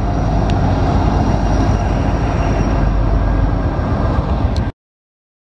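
Wind buffeting the microphone and rolling noise of a bicycle being ridden: a loud, steady rush with a heavy low rumble. It cuts off abruptly about four and a half seconds in, leaving dead silence.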